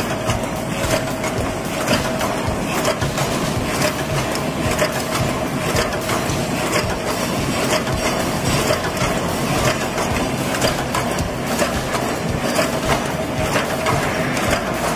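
Paper cup making machine running: a fast, continuous clatter of clicks and knocks from its rotary turret and forming stations over a steady whine.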